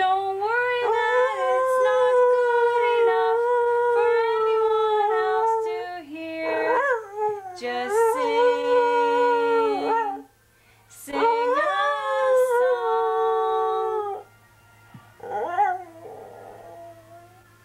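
Australian shepherd–border collie cross dog howling: three long, wavering howls and a short one near the end. A person's lower voice holds a steady note along with the second howl.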